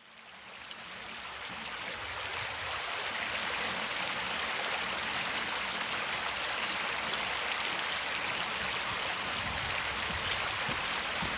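Shallow, stony stream running, fading in from silence over the first few seconds to a steady rush.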